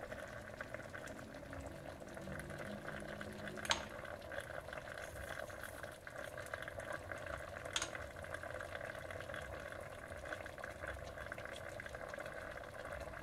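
Chicken breasts sizzling in oil and their own juices in the bottom of an open pressure cooker, a steady crackling hiss, with two light taps about 4 and 8 seconds in.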